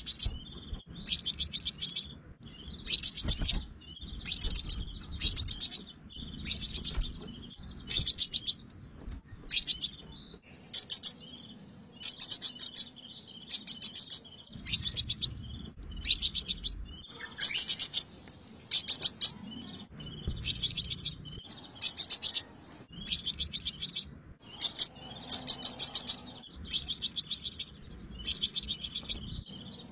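Sunbird song: short, very rapid, high-pitched trilled phrases repeated about once a second with brief pauses. It is a lure call of the kind played to draw wild sunbirds to a trap.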